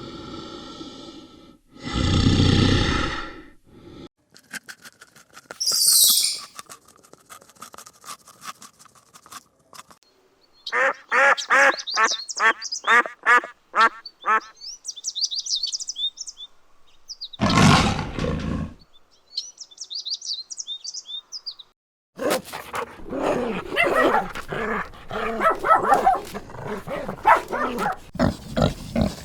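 A series of different animal calls one after another, with short pauses between them: a loud call about two seconds in, a high squeal, a run of rapid even pulses, another loud short call followed by high chirps, and dense rapid calling near the end.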